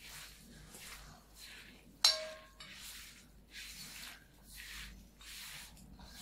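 A hand squeezing and kneading chopped raw meat in a glass bowl, a wet squishing repeated about one and a half times a second. About two seconds in, one sharp ringing clink against the glass bowl stands out above the rest.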